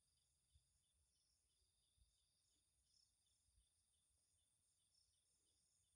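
Faint chorus of night insects, field crickets among them, trilling and chirping steadily at several high pitches in evenly repeating pulses, with a few faint low thumps.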